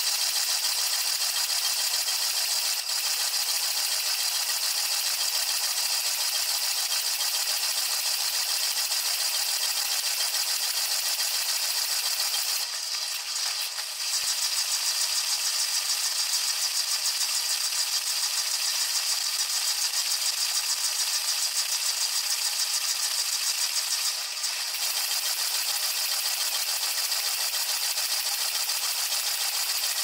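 Bosch dishwasher's water spray heard from inside the tub during the rinse and heating stage: a steady, rattling hiss of water hitting the camera and racks. It drops briefly about 13 seconds in and again about 24 seconds in.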